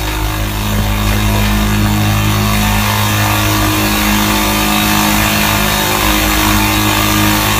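Raw image data from a TIFF of a spiral fractal, imported into Audacity at a 20,000 Hz sample rate and played back as audio. It is a loud, rough, steady hiss with low droning hums beneath it.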